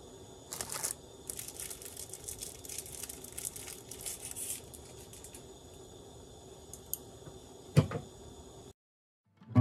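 Light crinkling and rustling handling noises for a few seconds, then a single knock near the end, over a faint steady hum. The sound cuts off abruptly just before the end.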